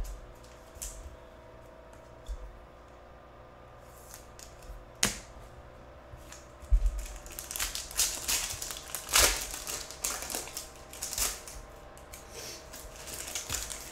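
Foil wrapper of a Donruss Optic UFC trading-card pack crinkling as it is handled and torn open, in a dense rustling run from about seven to eleven seconds in. Cards are shuffled around it, with one sharp click about five seconds in.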